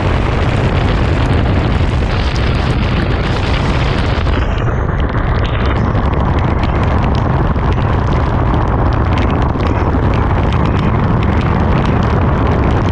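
Heavy wind buffeting on the microphone of a motorcycle riding at speed, a loud steady rush. About four seconds in the hiss dulls, and many small sharp ticks of rain hitting the camera and helmet come through.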